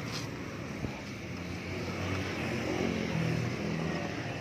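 A motor vehicle's engine passing on the road, growing louder a little past halfway and fading near the end, over steady traffic noise.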